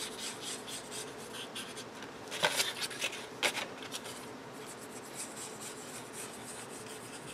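The tip of a squeeze bottle of liquid glue rubbing along a cardstock tab as glue is laid on, with light handling noise of the paper. A few short sharp clicks or rustles stand out about two and a half and three and a half seconds in.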